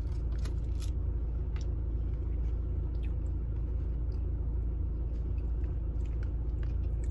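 Eating sounds of a mukbang: bites and chewing with a few small clicks and scrapes, over a steady low rumble.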